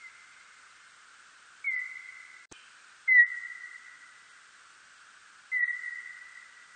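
Birdlike noctule bat calls: three short whistle-like notes, each starting with a brief downward slide into a steady pitch and then fading out, over a steady hiss. A single sharp click comes between the first and second notes.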